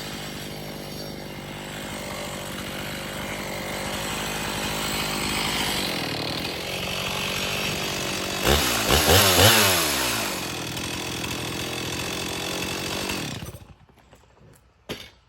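Chainsaw running under load in an Alaskan-style chainsaw mill, ripping a pine log lengthwise into a slab. About eight seconds in, the engine speed swings up and down for a couple of seconds, the loudest part. It then runs steadily and stops abruptly near the end, as the cut is finished.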